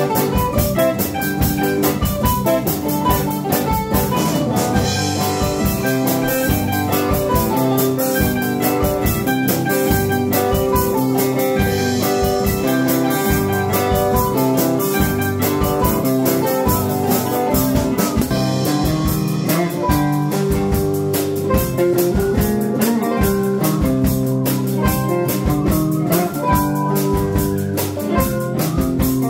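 Instrumental band music with no singing: plucked mandolin and guitars over a drum kit keeping a steady beat.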